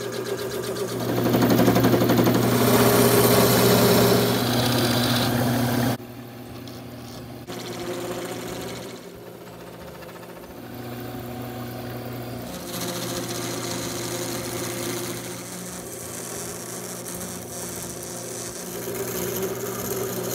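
Wood lathe running with a steady motor hum while a hand-held turning tool cuts into the spinning apple-wood handle blank, a scraping hiss of the cut. The cutting is loudest for the first several seconds, drops off abruptly, then goes on more lightly.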